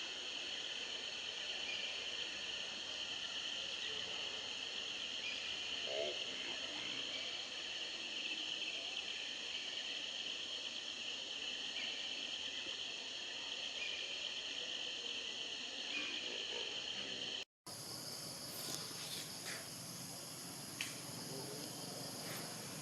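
Steady, shrill chorus of insects. About seventeen seconds in, a cut replaces it with a higher-pitched insect chorus and a few sharp clicks.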